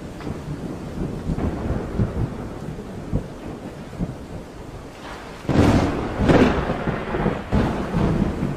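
Thunder rumbling low over a steady hiss of rain, then a sharp, loud thunderclap about five and a half seconds in that rolls on in swells for a couple of seconds.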